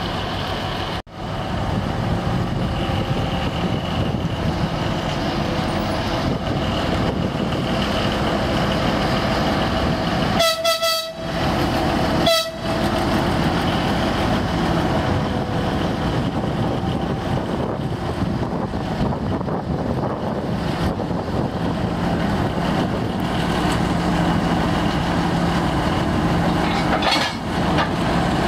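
M62 diesel locomotive's two-stroke V12 diesel engine running steadily as the locomotive creeps up to couple to an electric train. Two horn blasts about ten and twelve seconds in: the first nearly a second long, the second short.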